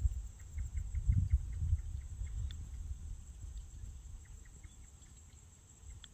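Low rumble of wind and movement on the microphone, strongest in the first two seconds, with a faint run of short, evenly spaced chirps, about four or five a second.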